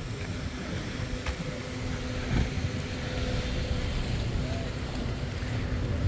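Car traffic on a busy city street: engines running past in a steady low rumble, with a steady engine hum that fades out about two-thirds through.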